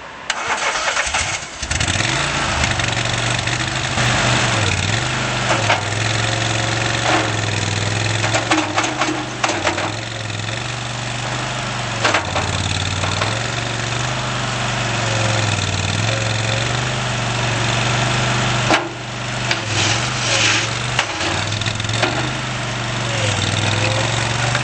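Mertz Boxer 320 mini skid steer loader's engine starting and then running, its speed dipping and recovering several times as the machine is worked. Scattered clanks and rattles from the machine throughout.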